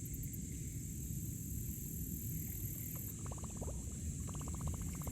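Steady high buzz of insects over a low rumble of wind on the microphone. About three seconds in, runs of fast, even clicking start, roughly fifteen clicks a second.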